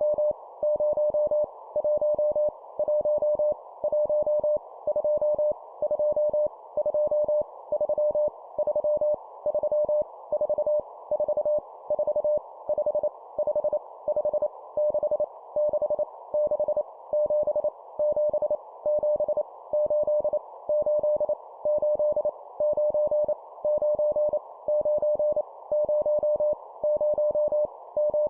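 Morse code (CW) at 25 words per minute: a steady mid-pitched beep keyed on and off in quick dots and dashes over a narrow band of receiver-like hiss, sending numbers, each repeated three times.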